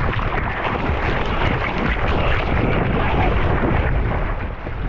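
Steady rush of ocean water and wind buffeting the camera microphone out in the surf, a loud low rumble without a break.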